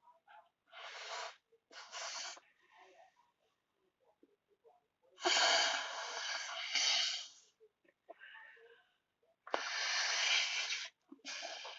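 A person blowing hard into a piece of slime to inflate a bubble: a series of breathy blows, about five, the longest lasting around two seconds a little before the middle.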